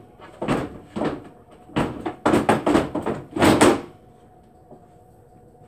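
A foosball table knocking and clattering: a run of sharp wooden knocks, single ones, then a quick cluster and a last double knock, after which it goes still.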